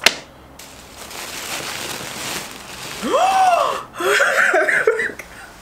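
A sharp click, then faint paper and packaging rustling, then about three seconds in a woman's excited vocal 'ooh' that rises and falls in pitch, followed by squealing giggles.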